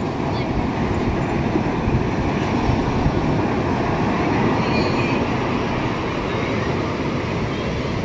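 Surf washing up a sandy beach, heard as a steady low rumble with wind buffeting the microphone.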